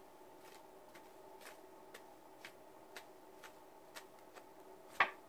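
Faint, regular ticking, about two ticks a second, over a faint steady hum, with one sharper click near the end.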